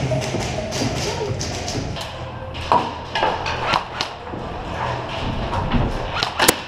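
Scattered single airsoft gun shots and thuds a second or two apart, with two quick shots close together near the end.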